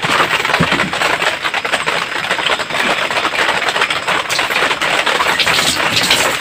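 Light rain pattering, a steady dense crackle of rapid drop ticks.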